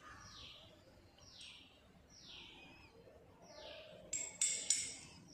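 A bird repeats a short falling call about once a second. About four seconds in, three sharp glass clinks from test tubes being handled.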